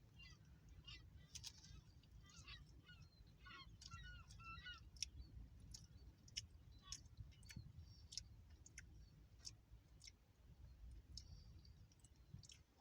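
Faint gull calls, several wavering cries in the first five seconds. Scattered small clicks and crunches of chewing run throughout.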